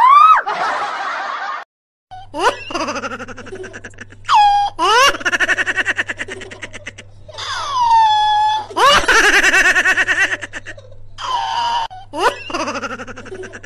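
Bursts of loud laughter, unusually high in pitch, with long sweeping rises and falls and rapid ha-ha pulsing. A faint steady low hum runs under it from about two seconds in.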